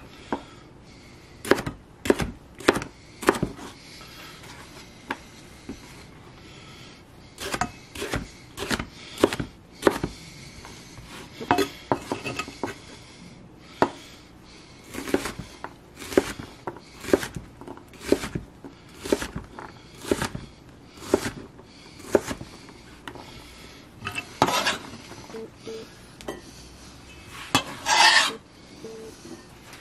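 Knife chopping red bell pepper on a cutting board: irregular single strikes and short runs of cuts as the pepper is cut into strips and then diced. Two longer scraping sounds come near the end.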